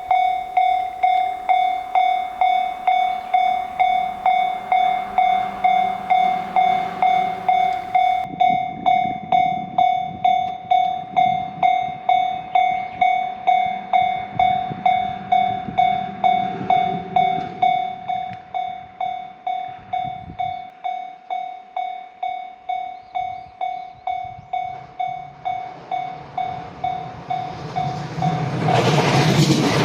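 Japanese level-crossing warning bell ringing "kan-kan" at a steady beat of nearly two strikes a second. Near the end the bell stops and a loud rush of train noise takes over as a train reaches the crossing.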